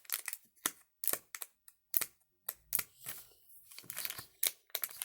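Plastic toy packaging being handled and worked open by hand: a string of short, irregular crinkles and clicks with brief pauses between them.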